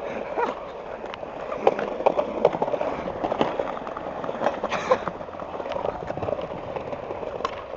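Skateboard rolling over tiled pavement, its wheels clattering on the joints, with repeated sharp clacks and knocks of the board from pops and landings. About halfway through comes a longer scrape as the board rides a low metal rail.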